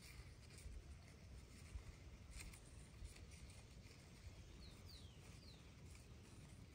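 Near silence: faint outdoor background with a few soft clicks and, about five seconds in, three short, high, falling bird chirps.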